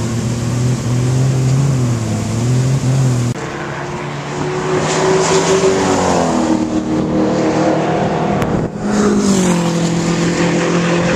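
Car engines at a race track: an engine running with a steady, slightly wavering note, then after a cut a car accelerating on the circuit, its engine note climbing, dropping at a gear change and climbing again, before settling to a steady note near the end.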